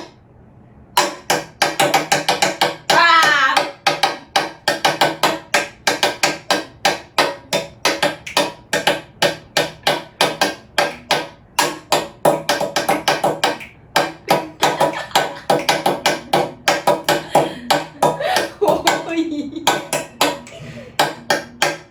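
Rapid hand taps and knocks on a tabletop, beating out the rhythm of a pop song's melody, about four or five strikes a second with short pauses between phrases.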